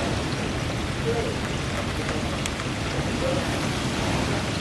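Heavy hurricane rain falling steadily with strong wind, a dense even hiss with a low rumble and the odd sharp tick of drops hitting.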